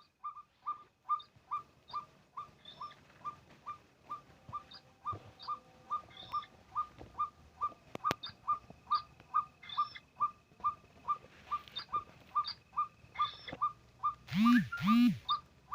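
Animal calls: a steady run of short, clipped calls, about two or three a second, then two loud, arching calls near the end.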